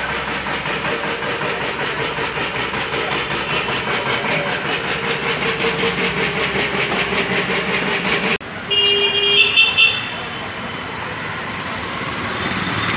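Small motor vehicle engine running close by with a fast, even pulse. It stops abruptly about eight seconds in, followed by a few short toots of a vehicle horn and then steady street traffic noise.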